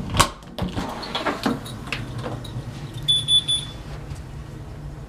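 Front door being opened by its brass knob: a knock and then clicks of the knob and latch. About three seconds in comes a quick run of high electronic beeps.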